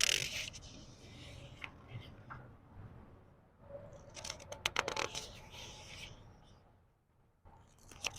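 Book pages being turned slowly by hand, the paper swishing and crinkling: one turn at the start and a crisper, louder one from about four to six seconds in.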